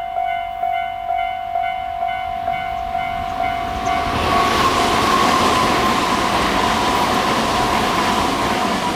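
Japanese level-crossing warning bell ringing at about two strikes a second. About four seconds in, a train passes over the crossing: loud wheel-and-rail rush with a whine that falls slightly in pitch, over the continuing bell.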